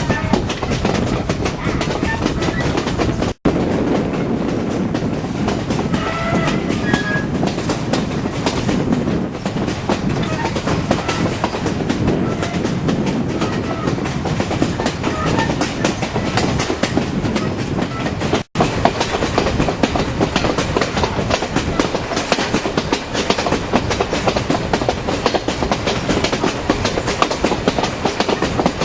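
Ontario Northland mixed train rolling along the track: a steady rumble of the cars with wheels clicking over the rail joints. The sound cuts out for an instant twice.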